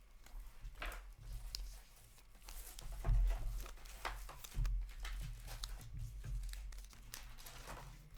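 Hockey card packs and cards being handled: paper-foil wrappers crinkling and tearing, and cards scraping and sliding against each other in short irregular rasps, over a low steady hum.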